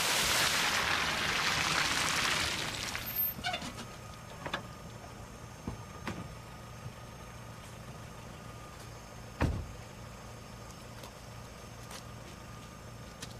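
A car drives along a wet road, its tyres throwing up a loud hiss of spray that fades out about three seconds in. After that a car engine idles with a steady low hum under a few small knocks and one heavy thud about two-thirds of the way through.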